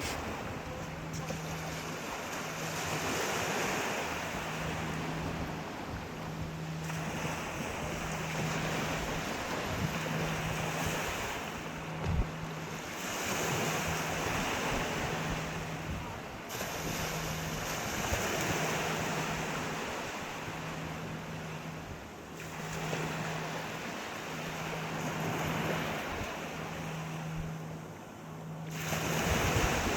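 Sea waves breaking and washing ashore, the surf swelling and falling away every few seconds, with a single short knock about twelve seconds in. A low hum pulses on and off steadily underneath.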